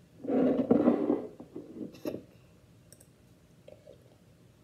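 A boy's short, breathy vocal outburst lasting about a second, like a heavy exhale, followed by a few light clicks and knocks as a drinking glass is picked up.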